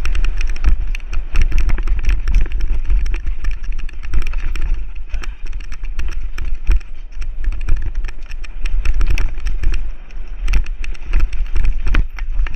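Mountain bike ridden fast down a rough dirt trail: wind buffeting the action camera's microphone as a steady low rumble, with the bike clattering and knocking over roots and rocks many times a second.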